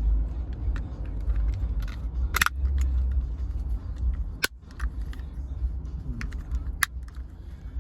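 Small plastic clicks and ticks as a master window switch's housing and parts are fitted back together by hand, with three sharper snaps among the lighter ticks, over a steady low rumble.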